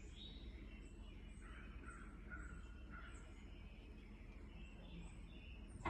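Faint bird calls: short repeated high chirps over a low steady hum.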